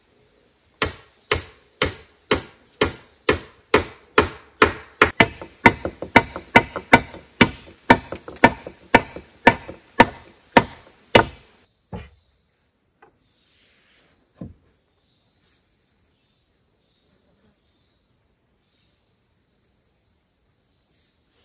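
A hand tool striking wood again and again, about two blows a second for some eleven seconds, with lighter in-between strikes in the middle, then stopping. A single further knock follows a few seconds later.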